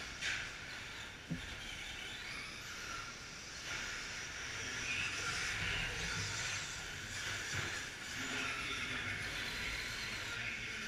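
Electric RC short-course trucks with 17.5-turn brushless motors whining as they race past on a dirt track, loudest in the middle as they pass close, with a couple of sharp knocks in the first second or so.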